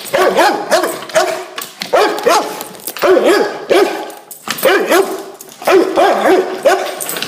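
A dog barking at a vacuum cleaner, in rapid volleys of loud barks about one volley a second with short gaps between.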